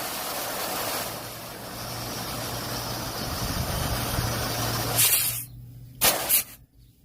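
Nitrogen gas rushing out of the split AC's condenser pipework in a steady hiss as the lines are flushed, blowing out old compressor oil. The flow stops about five seconds in, followed by two short blasts.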